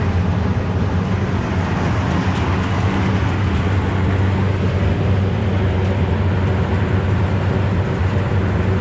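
Steady mechanical hum of running outdoor HVAC equipment: a low droning tone under a constant fan-like rush, unchanging throughout.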